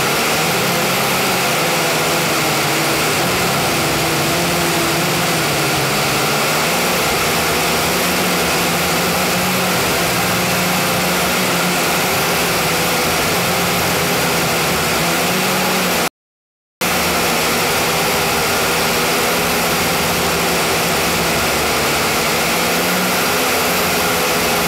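JJRC H29G quadcopter's motors and propellers running steadily, recorded by its own on-board camera: a dense hiss over a low hum whose pitch wavers slightly. The sound cuts out completely for about half a second some two-thirds of the way through.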